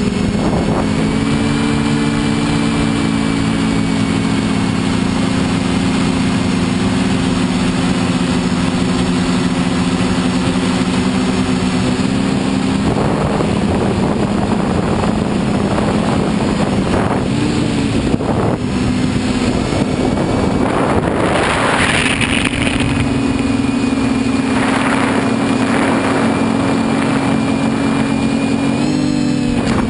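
Motors and propellers of a TBS Discovery quadcopter running steadily in flight, heard from its onboard camera, with air rushing over the microphone. The motor tone steps up and down a few times as the throttle changes, and the rush of air swells about two-thirds of the way through.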